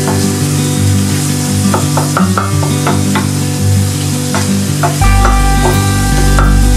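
Wooden spatula stirring tomato chunks and scrambled egg in a nonstick frying pan, over a steady sizzle, with scraping strokes against the pan. Background guitar music grows louder about five seconds in.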